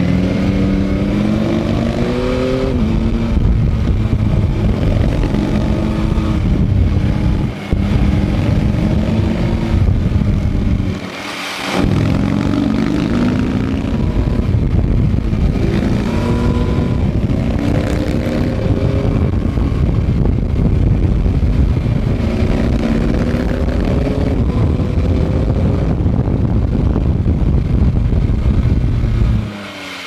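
Yamaha MT-09 SP's three-cylinder engine pulling hard on the road, its pitch repeatedly rising under acceleration and falling again, with wind noise underneath. There is a brief break in the sound about seven and a half seconds in and a longer dip around eleven seconds, as the throttle is closed and gears are changed.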